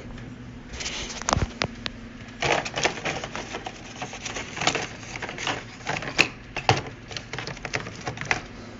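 Irregular clicks, taps and rattles of a Dicon 300 smoke alarm's plastic housing being handled, over a steady low hum.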